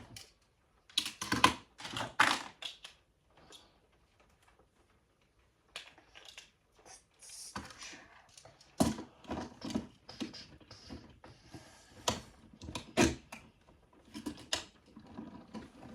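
A series of irregular sharp clicks and taps, like small hard objects knocking together, with a short quiet pause partway through.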